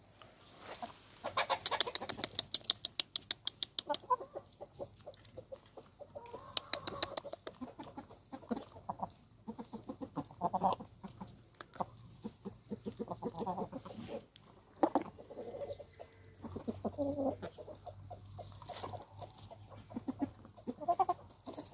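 Several hens clucking as they feed, with runs of rapid clicking from their beaks pecking at grain, mostly in the first few seconds.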